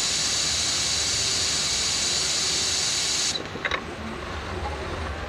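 Steady compressed-air hiss from the robotic palletizer's pneumatic gripper as it holds a cardboard tier sheet. The hiss cuts off abruptly a little over three seconds in, followed by a few light clicks.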